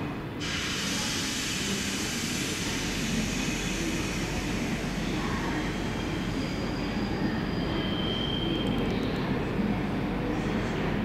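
A train running on the rails: a steady rumble with hiss, and two brief high squeals from the wheels or brakes about seven and eight seconds in.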